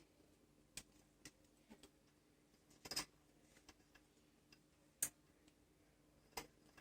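Near silence broken by a handful of faint, sharp clicks and taps at irregular intervals, the loudest about three and five seconds in, as a part is handled and pushed into place during assembly.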